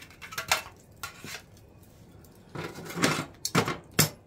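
Metal clanks and scrapes of a cast-iron wood stove's round hob lid being lifted and set back into its burner opening with a metal lid lifter. There are several separate knocks, a cluster a little past halfway and the sharpest near the end.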